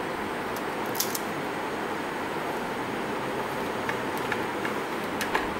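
Steady hiss of room noise, with a few faint clicks about a second in and again near the end.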